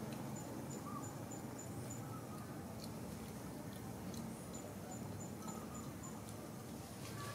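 Outdoor ambience: a small, high chirp repeated evenly about three times a second, in two runs of under two seconds each, over steady low background noise.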